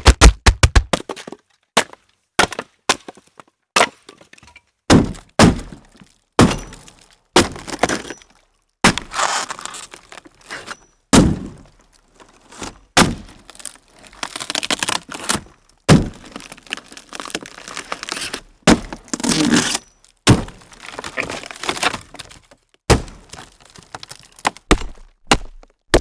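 A series of axe sound effects: sharp chopping strikes and thunks one after another with short gaps, opening with a quick run of strikes, several of them trailing into longer cracking, breaking noise.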